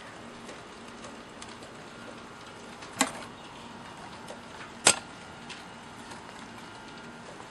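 Handling noise from a model aircraft being picked up and moved about: two sharp knocks about two seconds apart, the second the louder, over a faint steady hum.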